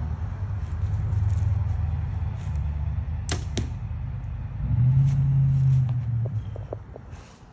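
A bow shot: a sharp snap of the string about three seconds in, then the arrow striking the target a fraction of a second later. A low steady hum runs underneath and grows louder for a second or two after the shot.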